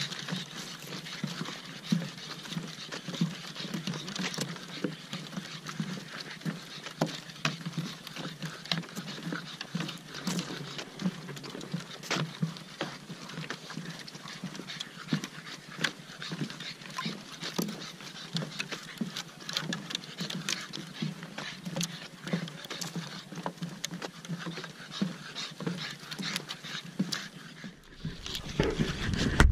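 Pugs breathing and panting as they walk, over a steady run of footsteps and claw clicks on a wooden boardwalk.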